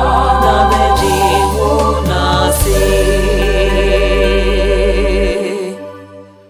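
Twi gospel song ending: voices hold long wavering final notes over a deep bass and sustained chords. The bass cuts off about five seconds in and the music fades out near the end.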